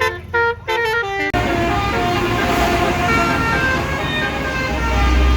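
Bus telolet horn, a Basuri multi-tone air horn, playing a tune of short notes at different pitches. About a second in, the sound switches abruptly to a louder, busier mix of overlapping horn notes over traffic noise, and a deep rumble comes in near the end.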